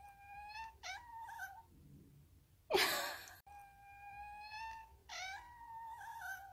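A long-haired Munchkin Napoleon cat chattering: thin, high chirping calls, some held steady for about a second and some bending up and down, the excited chirping of a cat fixed on prey it can't reach. About three seconds in there is one short, loud rasping burst, and near the end the chirping runs into a yawn.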